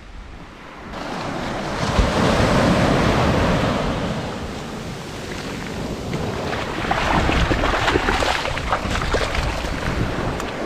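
Surf washing up the beach: a wave's whitewash rushes in about a second in and runs loudest for a couple of seconds, then eases and builds again, with wind buffeting the microphone. Short scratchy crackles come through the wash in the last few seconds.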